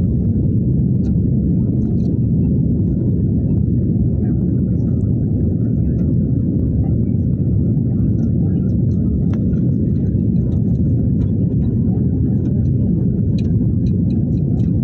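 Steady low rumble of a jet airliner's engines and airflow heard inside the passenger cabin during the climb-out after takeoff, with faint small ticks over it.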